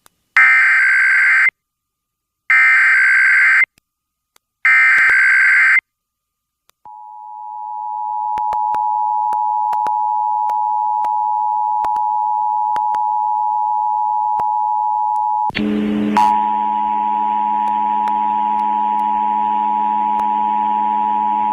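Emergency Alert System monthly test tones over FM radio: three screeching bursts of SAME header data, each about a second long, then the steady two-tone EAS attention signal (853 and 960 Hz), which fades in. About fifteen seconds in, the attention tone breaks briefly and comes back with a low hum and hiss under it.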